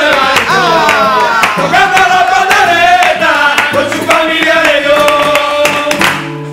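Recorded Christmas song: a gliding melody line over accompaniment, fading out about six seconds in, leaving a low held note.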